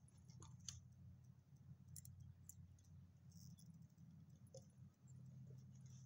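Near silence: a faint low hum with a few scattered light clicks.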